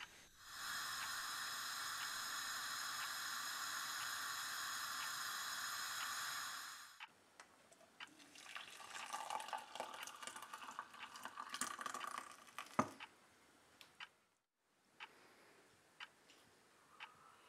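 Water running steadily for about six seconds and then cutting off. Next comes an uneven trickle of hot tea poured from a pan through a metal tea strainer into a mug, ending in a single sharp clink of metal on the mug.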